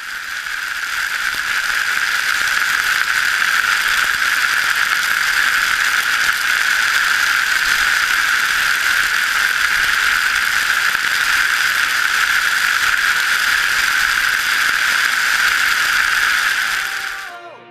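A loud, steady rattling hiss with a strong high hum running through it. It cuts off suddenly near the end.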